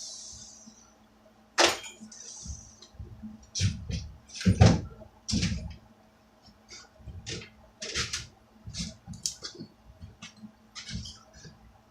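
A power tool fading out as it winds down, then a string of irregular clicks and knocks, about fifteen in all, from tools and hardware being handled while a workbench is bolted together.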